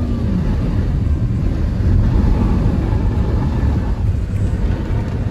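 A car being driven, with a steady low rumble of engine and road noise.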